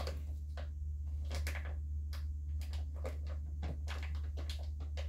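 Heavy-duty titanium-coated scissors snipping through a plastic mushroom grow bag: a run of short cuts, about two or three a second, over a steady low hum.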